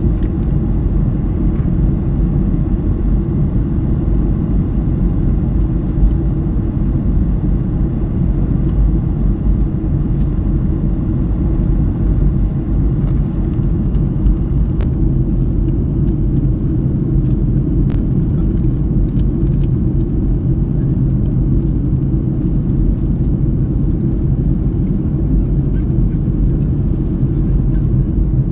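Steady low rumble of a passenger airplane during landing, even throughout with a few faint ticks.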